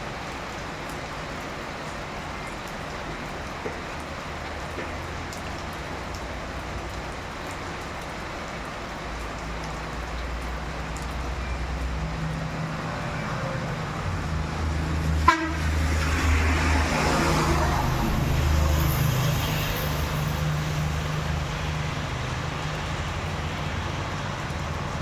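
Steady rain, with a heavy vehicle passing on the road: a low engine rumble builds from about ten seconds in, is loudest about two-thirds of the way through, then fades back under the rain. A single sharp knock comes just before the loudest part.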